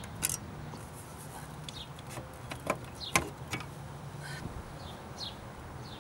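Scattered clicks and knocks of a screwdriver and plastic trim as the lower steering-column cover of a Mazda Miata is unscrewed and pulled loose, with the sharpest knocks bunched around the middle. A few short falling bird chirps sound in the background over a low steady hum.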